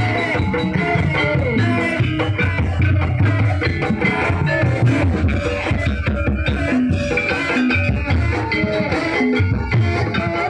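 Live ebeg accompaniment: a Javanese gamelan-style ensemble with drums playing a steady, loud, dense rhythm under pitched melodic parts.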